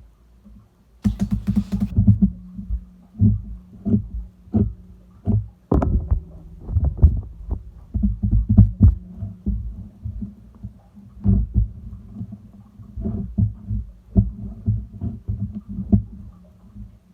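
Bubble-filled pink slime being squished and pressed by hand: irregular soft squelches and little pops as the air bubbles in it burst, several a second. A brief crackly hiss about a second in.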